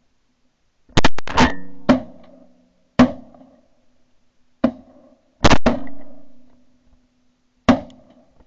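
Volley of shotgun shots from several hunters: a quick cluster of three or four shots about a second in, then single shots spread over the next several seconds, each echoing briefly.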